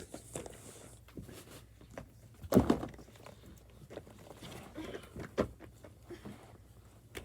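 Pop-it fidget toys being handled and sorted for counting: scattered light knocks and rustles, with a louder thump about two and a half seconds in and another near five and a half seconds.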